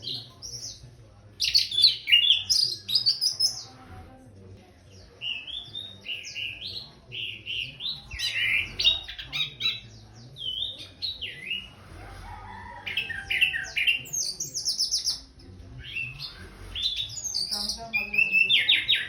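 Orange-headed thrush singing: fast, varied phrases of high whistles and chirps, sung in runs of a few seconds with short pauses between them.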